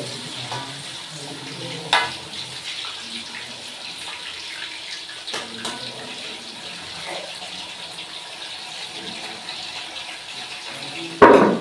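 Food sizzling steadily in a wok on a gas stove, with a few short scrapes and knocks of the cooking utensil against the pan. A single loud knock comes near the end.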